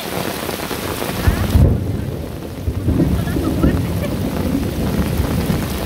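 Heavy rain hissing steadily, with a low rumble of thunder that starts about a second in, is loudest soon after, and keeps rumbling.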